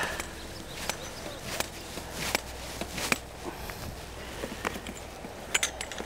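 Scattered light knocks and clicks, a few seconds apart, from an angler stepping about on a metal fishing platform and handling his gear, over a low steady outdoor rumble.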